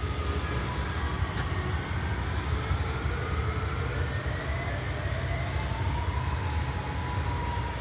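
Distant outdoor warning sirens wailing faintly, their pitch rising slowly and then holding, under a steady low rumble.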